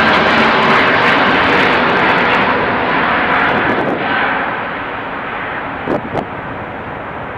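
Antonov An-124-100's four Progress D-18T turbofans at climb power as the jet passes overhead after takeoff: a loud roar with a steady whine in it, fading and losing its high end over the last few seconds as it climbs away.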